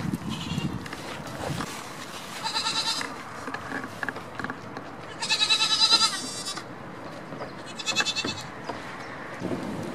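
Goats bleating: three high calls a few seconds apart, the middle one the longest and loudest at about a second and a half, with a quavering pitch.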